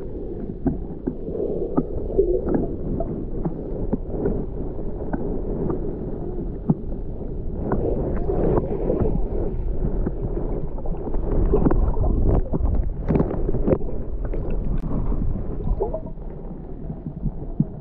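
Underwater ambience: a muffled, steady rumble of moving water with scattered sharp clicks and crackles.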